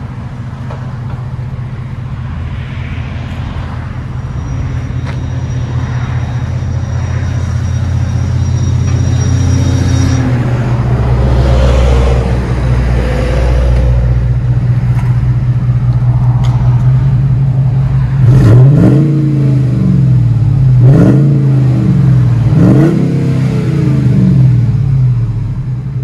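2008 Ford F-150's 5.4-litre Triton V8 breathing through a Flowmaster FlowFX single-in, dual-out muffler with 2.25-inch side-exit tailpipes. It idles steadily, then is revved sharply several times in the last third, each rev climbing and falling back to idle.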